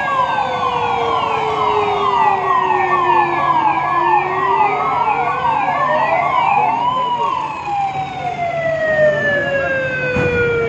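Two emergency sirens sounding together, most likely from the fire engine: a slow wail that falls, climbs sharply about seven seconds in, then falls slowly, over a fast repeating falling tone of two or three sweeps a second that stops about seven seconds in.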